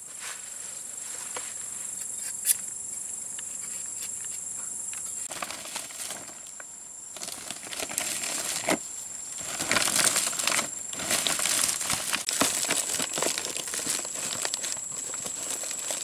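Stiff fan palm leaves rustling and crackling as they are folded and bundled by hand, louder and busier in the second half. There is one sharp snap about two and a half seconds in.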